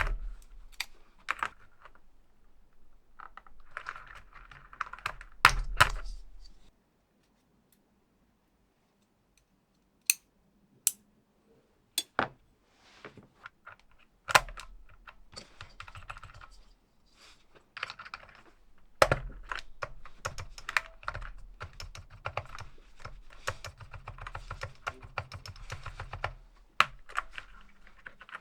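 Typing on an SPM AL87A full-aluminium 87-key mechanical keyboard, in bursts of keystrokes. After a few seconds it goes silent for about three seconds, then come a few single key presses spaced about a second apart, then a long run of fast typing through the second half.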